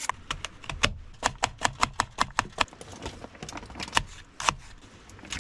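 Knife chopping food on a cutting board: a fast run of sharp taps for about a second and a half, then scattered single taps.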